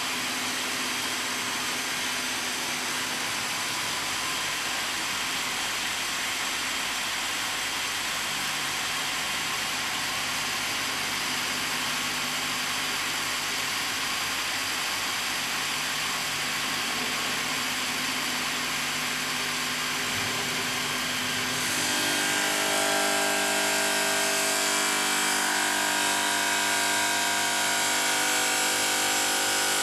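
Bridge-type stone cutting machine running, its circular saw blade cutting through a wet stone slab with a steady grinding whine. About two-thirds of the way through, the sound gets somewhat louder, with several steady whining tones.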